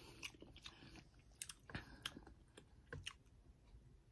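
Faint close-up chewing of a person eating, with scattered soft clicks and small crunches.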